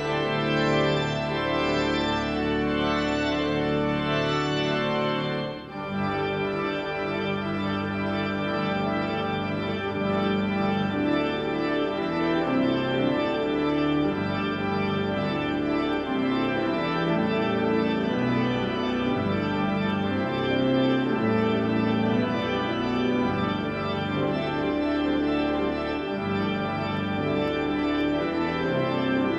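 Church organ played with both hands, full sustained chords that change every second or so. The sound breaks off briefly about six seconds in, then a new phrase begins.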